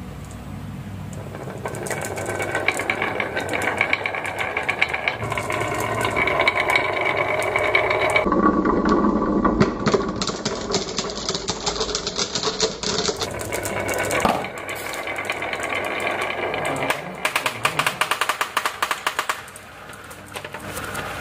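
A crowd of glass marbles rolling down a zigzag groove carved in a wooden track. It makes a dense rattle of clicks as they knock against each other and the wooden walls, starting about two seconds in.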